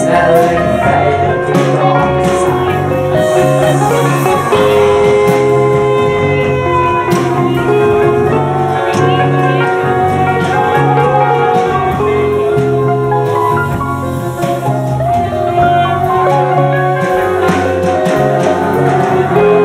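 A live band playing, with guitars, keyboard and drums under long held notes and singing.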